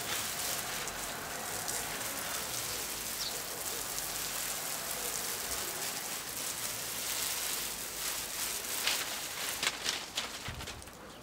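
Garden hose pistol-grip spray nozzle jetting water onto shrubs and ferns, a steady hiss of water hitting leaves. A few sharp clicks come near the end, and the spray stops about ten seconds in.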